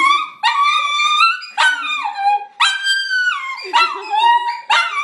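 Small dachshund crying: a string of high-pitched yelping whines, roughly one a second, each starting sharply and sliding down in pitch. It is the distress of separation anxiety at its owners leaving.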